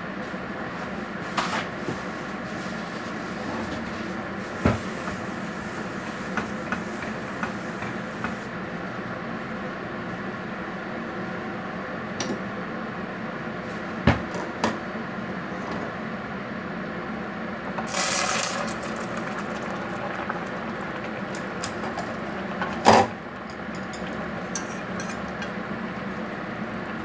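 Kitchen sounds over a steady background hum: scattered clicks and knocks of cookware and utensils around a claypot on a gas stove, a brief hiss past the middle, and a loud knock a few seconds later.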